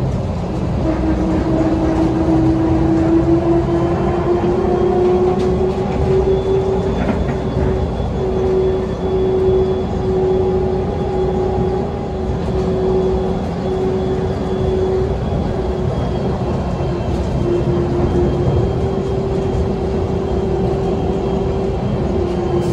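Airport automated people-mover train running, a steady electric motor whine over a rolling rumble. The whine rises slightly in pitch over the first few seconds, holds, and falls again near the end as the train eases off.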